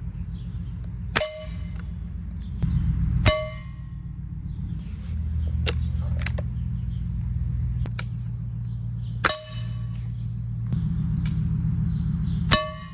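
Air-rifle pellets striking a hard metal pot four times, each hit a sharp clang that rings briefly at several pitches. The pellets only leave small marks without piercing it. Faint clicks fall between the hits, over a steady low hum.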